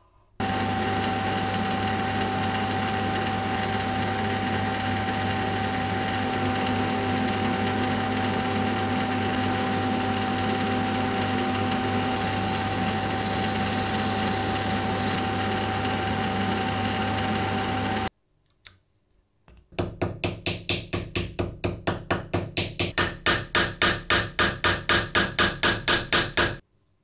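Metal lathe running steadily with a motor hum while a part spins in it. For a few seconds midway a brighter hiss joins in as sandpaper is held against the turning metal. After a short pause comes a quick, even run of strokes, about four a second, for several seconds.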